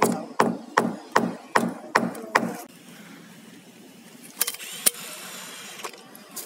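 Caulking gun's trigger ratchet clicking in a steady rhythm of about two and a half clicks a second as sealant is squeezed out, stopping after about two and a half seconds. Two more single clicks follow near the end.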